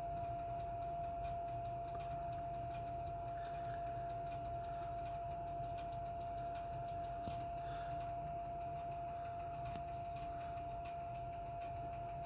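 Monitor 422 kerosene heater running with its burner lit: a steady hum carrying one constant pitched tone, with rapid, uneven ticking throughout.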